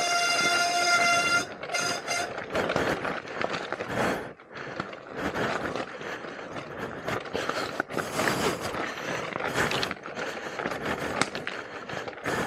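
Talaria Sting R electric dirt bike's motor whining steadily under throttle for about the first second and a half, then uneven clattering noise of the bike riding over rough trail.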